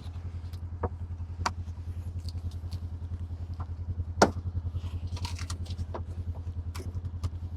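A vehicle engine idling with an even, low pulse, with a few sharp clicks and knocks over it; the loudest knock comes about four seconds in.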